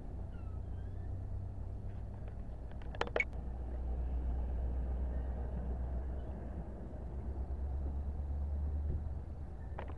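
NJ Transit commuter train rolling along the station platform: a steady low rumble, with a short clatter of sharp clicks about three seconds in and another near the end.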